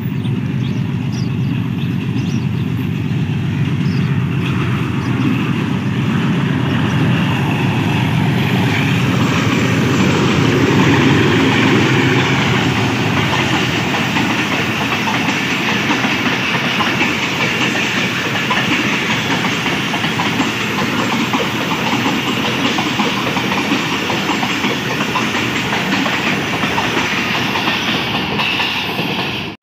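Pakistan Railways HBU-20 diesel locomotive 8079 runs past close by hauling a passenger train, followed by a long line of coaches rolling by in a steady clickety-clack of wheels over the rail joints. The sound is loudest about ten to twelve seconds in and cuts off suddenly at the end.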